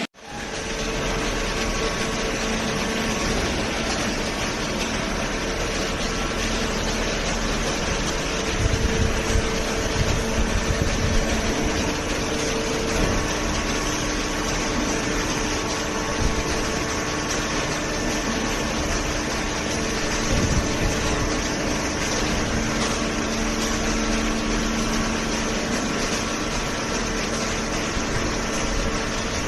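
Cardboard baler running: a steady mechanical drone with a low hum, with a few louder knocks between about 8 and 13 seconds in.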